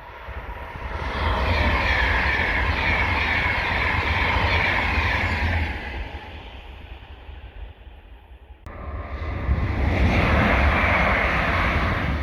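Class 390 Pendolino electric train passing at speed: a steady rush of wheels on rail and air with a low hum, building over the first second or so and fading after about six seconds. After an abrupt cut, another loud rush of a passing train.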